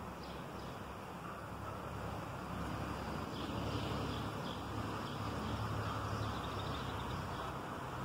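Cicadas droning steadily in the trees, over a low rumble that swells for a few seconds in the middle.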